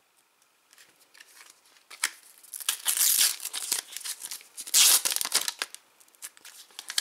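A Panini sticker packet torn open by hand, its wrapper crinkling and ripping. The noise starts about two seconds in and is loudest around three and again around five seconds.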